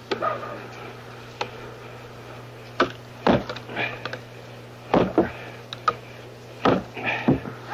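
Axe blows on a black spruce driftwood log being split: a series of sharp wooden knocks at uneven intervals, some in quick pairs, over a steady low hum.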